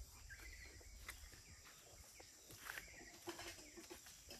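Faint rural outdoor ambience: a bird gives the same short call twice, about two seconds apart, over a steady high hum, with a few light clicks.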